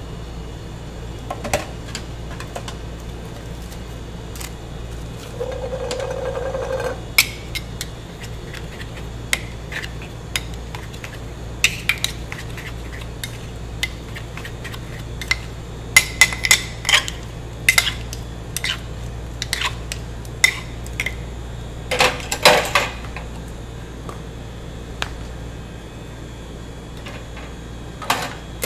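Two metal ice cream spades clinking and scraping on a frozen granite slab as ice cream and chocolate syrup are chopped and folded together: irregular sharp clicks and scrapes, busiest in the second half, over a steady low hum.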